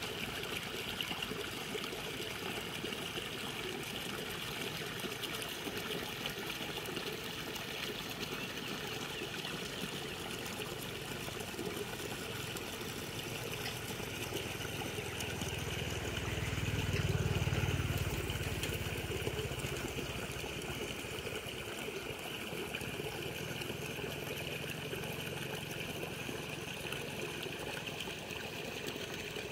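Muddy water trickling and splashing steadily as it runs through a cut in an earthen paddy bank and down a small ditch. About halfway through, a low rumble swells for a few seconds and fades.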